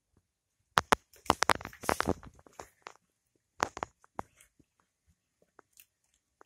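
A cat biting and chewing at something held in its paws: a dense run of sharp clicks about a second in, another short run just past the middle, then a few faint scattered clicks.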